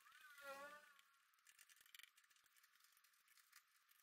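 Near silence: faint room tone with a few light ticks, and a brief faint warbling tone about half a second in.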